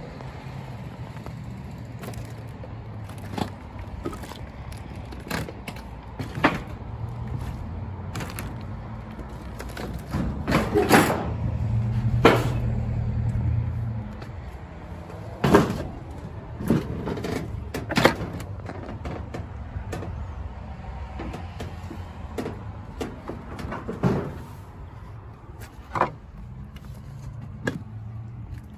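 A low engine drone, like heavy machinery running, grows louder about ten seconds in and eases off a few seconds later. Scattered sharp knocks and clatters sound over it.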